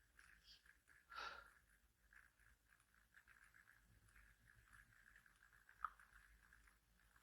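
Near silence: faint room tone, with a brief soft noise about a second in and a small click near the end.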